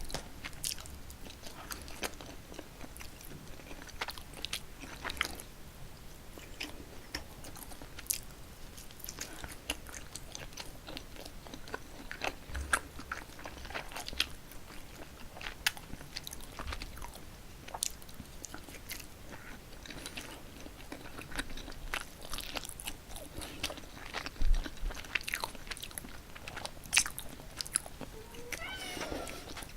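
Close-miked eating of cold spicy mixed noodles (Paldo Bibimmyeon): steady chewing with many small wet clicks and smacks. A short wavering sound comes near the end.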